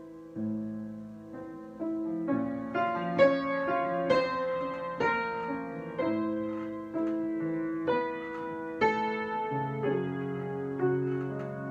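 Solo piano improvisation, slow and unhurried: chords struck roughly once a second, each left to ring and fade before the next. The texture fills out after about two seconds, and deeper bass notes join near the end.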